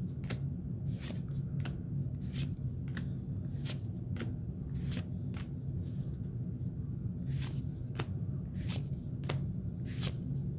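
Pokémon trading cards being slid and flipped one after another in the hands, a string of short, irregular papery swishes over a steady low hum.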